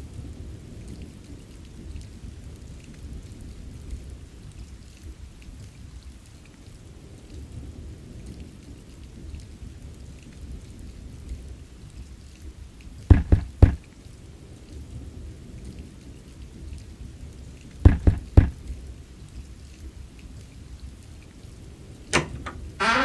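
Rain and thunder ambience, a steady low rumbling bed, broken by loud sharp knocks: two about thirteen seconds in, three about eighteen seconds in, and one more near the end.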